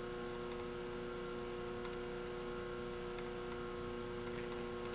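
Steady electrical hum with a faint hiss underneath, unchanging throughout.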